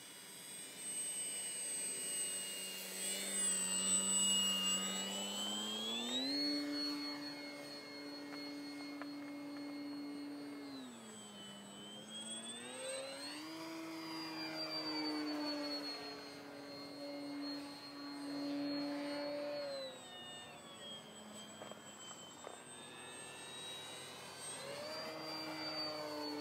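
Electric motor and propeller of an XFly GlaStar RC plane in flight, a steady whine that changes pitch with the throttle. It steps up about six seconds in, eases back near eleven seconds, rises again near thirteen, drops near twenty and climbs once more near the end.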